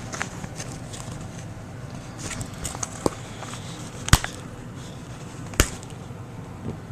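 Handling noises: faint rustling with a few sharp knocks or clicks, the loudest about four seconds in.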